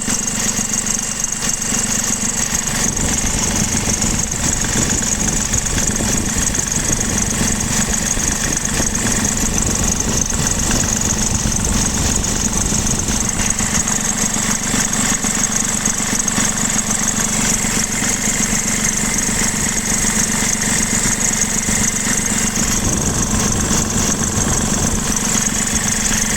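BMW F20 116d diesel engine idling with a steady high-pitched squeal from the ribbed drive belt. The squeal persists even though the belt and tensioner have been replaced twice and the AC compressor bearing renewed.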